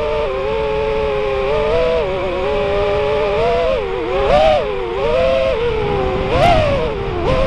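Electric motors and propellers of a 5-inch FPV freestyle quadcopter, heard from the action camera on board. A buzzing whine swings up and down in pitch with the throttle, with sharp punches up at about four and a half and six and a half seconds in.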